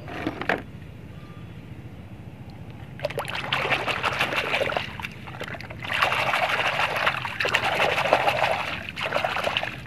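Water pouring, trickling and splashing as a muddy toy car is rinsed clean, in two spells of a few seconds each after a brief splash at the start.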